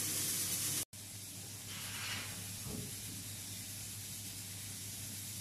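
Pressure cooker hissing steam as the cocido cooks. About a second in it cuts off abruptly, leaving a fainter steady hiss.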